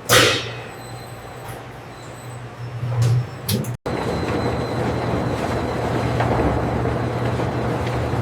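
Factory machinery running with a steady low hum. There is a short sharp hiss at the start and a louder surge about three seconds in. After a brief cutout just before four seconds, a denser, steady mechanical noise takes over.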